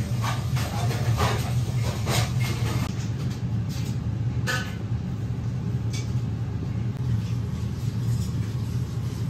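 Steady low rumble of restaurant room noise, with a few light clicks and clinks of tableware in the first half.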